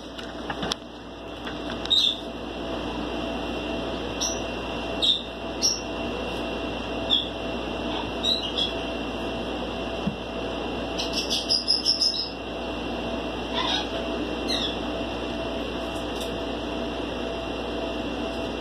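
A dozen or so short high chirps, scattered and bunched together briefly past the middle, over a steady hum.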